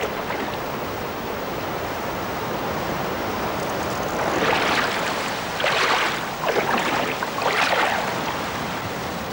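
Fast river water rushing over rocky rapids, a steady rush, with several louder splashes in the middle.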